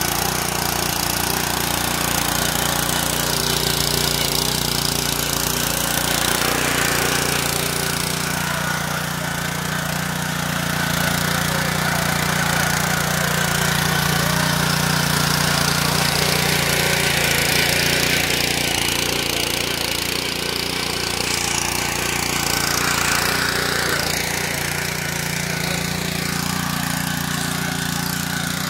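Honda power tiller's four-stroke engine running steadily under load as its rotary tines dig through the soil.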